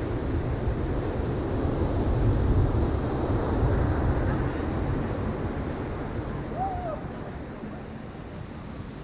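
Ocean surf breaking on a sandy beach: a steady rushing wash that swells about two seconds in and eases off toward the end.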